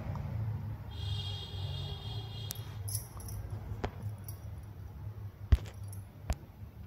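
Steel utensils clinking and knocking at a kitchen sink as dishes are washed by hand, with a short metallic ringing about a second in and a few sharp clinks, the loudest about five and a half seconds in.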